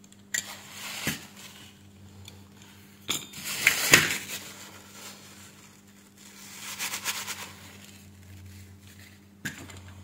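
Small metal hand tools scraping and clinking against a circuit board in three short bouts, the loudest about four seconds in, over a steady low electrical hum.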